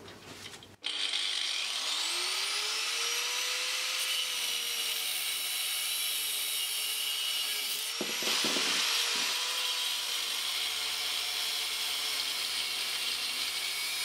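Angle grinder starting up about a second in and cutting through the heavy-duty welded steel shell of an air-conditioner rotary compressor, a steady grinding whine whose pitch rises and eases as the disc loads up in the metal.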